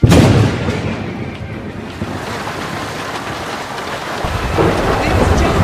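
Jet airliner engines heard from inside the cabin at takeoff power: a loud, steady rumble and rushing hiss that starts abruptly and grows a deeper rumble about four seconds in.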